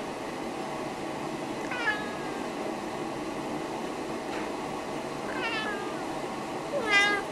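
Snowshoe cats meowing up at the person filming: three short meows, each falling in pitch, about two seconds, five and a half seconds and seven seconds in, the last the loudest.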